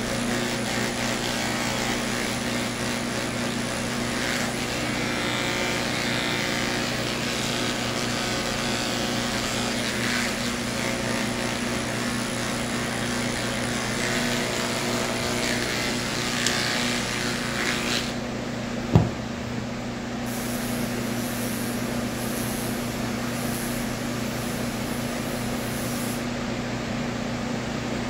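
Electric pet grooming clippers running with a steady hum as the blade cuts through a Persian cat's matted coat. About eighteen seconds in the higher hiss drops away, and a single sharp click follows a second later while the low hum carries on.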